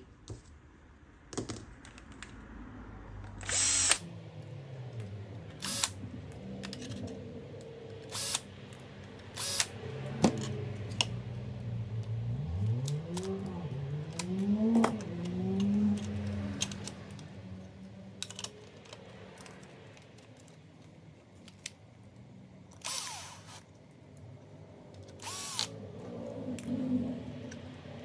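Bosch cordless drill-driver motor running in spells, its pitch rising and falling as it speeds up and slows, while screws are worked on a laptop's 2.5-inch drive caddy. Sharp clicks and clinks of the metal caddy and small parts being handled are heard throughout.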